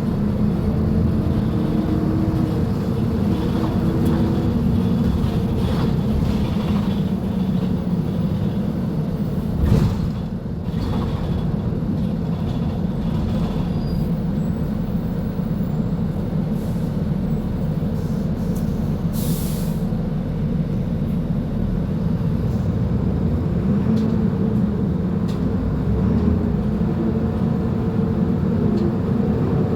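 Mercedes-Benz OF-1724L bus's diesel engine running steadily as the bus moves. There is a sharp knock about ten seconds in, and a short hiss of air about two-thirds of the way through.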